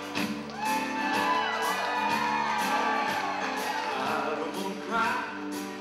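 Live country band playing a song with a steady beat while a man sings lead into the microphone.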